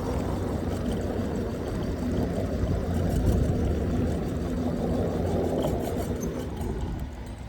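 Wind rushing and buffeting over the microphone of a rider on a moving electric scooter, a steady low rumble that eases off near the end.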